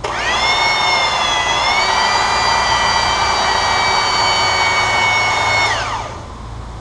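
Hydraulic pump powering the axle-bending rams on a truck's front axle, pressurising the ram to bend the axle for camber. A whine rises as the pump spins up, holds steady over a rushing noise, then falls away as it winds down about six seconds in.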